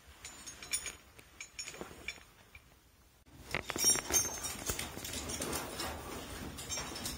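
Footsteps and scuffing on sandstone and grit while scrambling through a slot canyon, with scattered light taps at first, then louder, busier scraping and knocking from about three seconds in.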